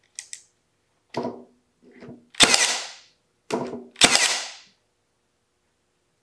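Milwaukee M18 Fuel 18-gauge cordless brad nailer firing brads into pine blocks: two loud sharp shots about a second and a half apart, each a moment after a shorter, quieter sound from the tool.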